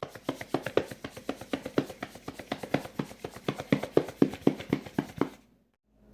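Rapid, even tapping or knocking, about five strokes a second, that stops abruptly about five seconds in.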